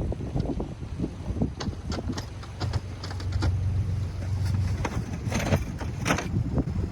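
Dodge Grand Caravan minivan running, its low engine hum building as it starts to move, with irregular knocks and clatter.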